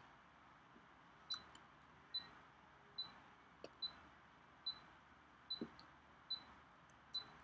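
A short, high electronic beep repeating evenly about every 0.8 seconds, eight times, with a faint soft thump or two in between.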